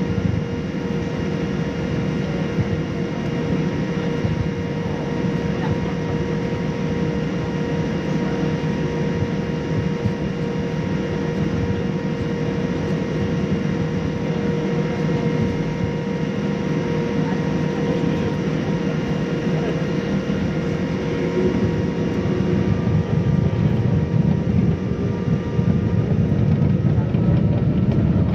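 Boeing 787-9 cabin noise while taxiing: a steady hum of the aircraft's systems over a low rumble. About three quarters of the way through, the noise grows louder and a faint whine starts to rise in pitch, as engine power increases.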